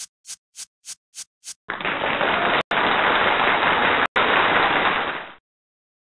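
Slideshow sound effects: a dry clicking about three times a second as caption text types on, stopping about a second and a half in; then a steady hiss of noise for the entrance of the next picture, broken by two brief sharp gaps and tailing off after almost four seconds.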